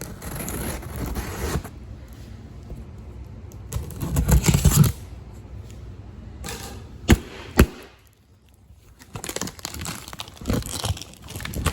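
Cardboard shipping box being opened by hand: packing tape tearing and cardboard scraping and crinkling, with two sharp snaps about seven seconds in.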